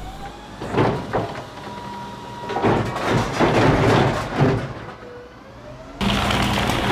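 Refuse truck's rear bin lifter emptying green wheelie bins: a steady whine from the hydraulics, then a couple of seconds of clatter as the bins and rubbish tip and bang into the hopper.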